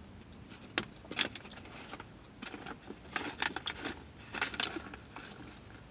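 Plastic snack pouch crinkling and rustling in short, scattered crackles as it is handled and reached into.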